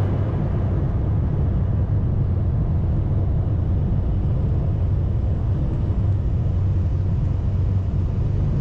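Jet airliner engine and air noise heard inside the cabin while the plane moves on the ground: a steady, loud, low rumble with a hiss on top.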